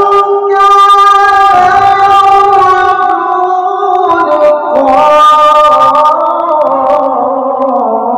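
A man reciting the Quran in the melodic tilawah style through a microphone, drawing out one long ornamented phrase with wavering held notes. The pitch steps lower in the last few seconds.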